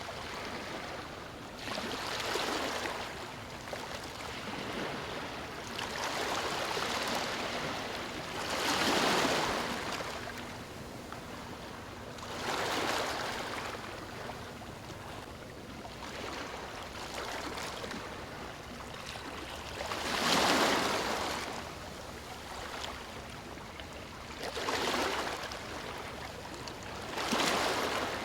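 Ocean waves breaking and washing up, a steady rush rising in about seven surges a few seconds apart, the loudest about nine and twenty seconds in.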